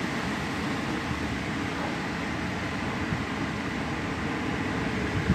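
Strong storm wind blowing steadily, buffeting the phone's microphone with a low rumble.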